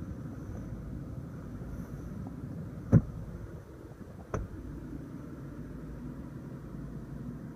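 Two sharp clicks from the third-row seat's manual fold lever and latch, one about three seconds in and a fainter one a second and a half later, over a steady low hum in the SUV's cabin.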